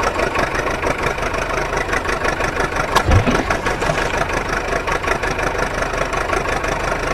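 Truck engine running steadily, with a short thump about three seconds in.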